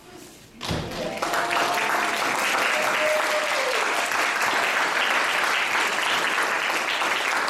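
Audience applause breaking out about a second in, after a brief lull and a thump, then going on steadily.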